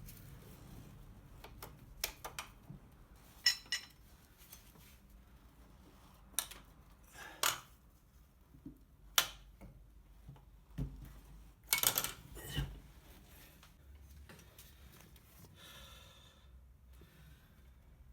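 Metal tools and parts being handled on a workbench: irregular clinks and clatters, with the loudest cluster about two thirds of the way through.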